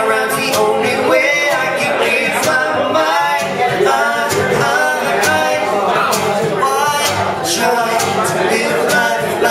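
Live acoustic song: a man sings over a strummed acoustic guitar, and a second man vocalises into a handheld microphone. Sharp percussive clicks recur about twice a second, keeping time.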